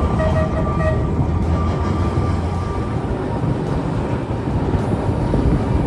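Open-top boat tram running along the street: steady rumble of wheels and motors with wind over the open car, and a high steady whine for about the first half that then fades.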